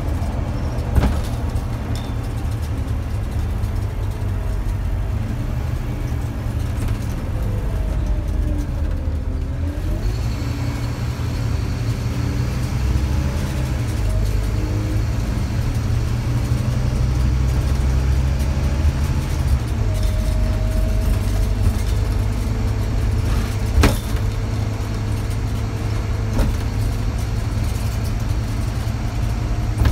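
Scania N230UD double-decker bus heard from inside while under way: its Scania DC9 diesel engine and ZF automatic gearbox pulling with a deep, steady rumble, the engine note rising and falling through gear changes about a third of the way in and shifting again later. A couple of sharp knocks from the bus body, one near the start and one near the end.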